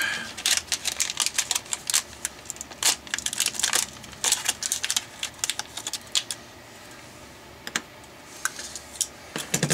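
Metallized anti-static bag crinkling and crackling as it is opened and a small buck converter board is taken out. Dense crackling for about six seconds, then a few scattered clicks.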